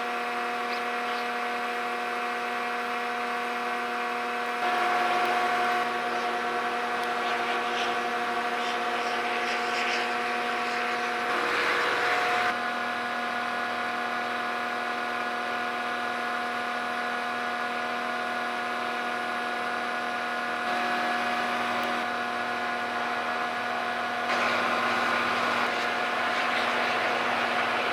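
A large car ferry's engines droning across the harbour as it turns in to berth: a steady hum with several fixed tones over a noisy background, sped up fourfold. The level jumps up or down abruptly every few seconds.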